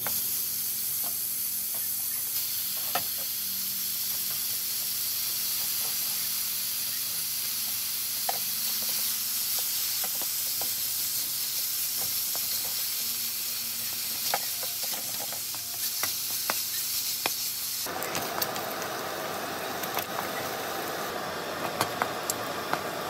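Bacon sizzling in a dry wok as it is stir-fried, a steady hiss with scattered sharp clicks as it is stirred. About 18 seconds in, the sizzle becomes fuller and louder.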